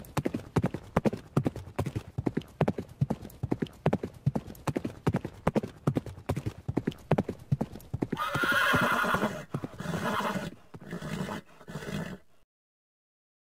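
Horse hooves clip-clopping in a quick, steady rhythm. About eight seconds in, a horse whinnies: one long call, then three shorter ones. The sound cuts off suddenly near the end.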